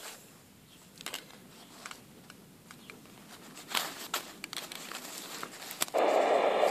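Small plastic clicks and rustles of cables and a cigarette-lighter plug being handled. About six seconds in, the CB radio powers on and a loud, steady hiss of receiver static starts abruptly.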